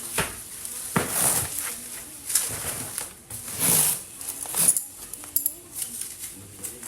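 Packaging being handled while keycaps are wrapped: a run of short rustling, crinkling bursts, the longest about a second in and near the four-second mark.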